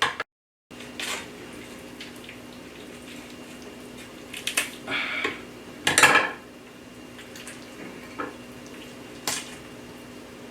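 Scattered clinks and knocks of kitchen utensils handled and set down at a work surface while a fish is being butchered, the loudest a sharp knock about six seconds in, over a steady low hum.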